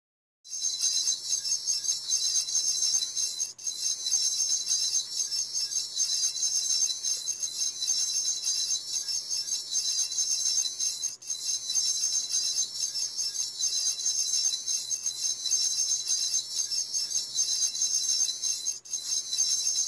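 A high, shimmering jingle like shaken bells, running steadily as an intro sound loop. It breaks off for a moment about every seven and a half seconds.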